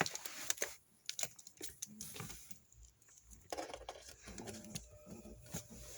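Clicks and handling as the plug goes into the outlet, then about three and a half seconds in the Hunter 90400 table fan switches on by itself and starts running with a faint steady hum.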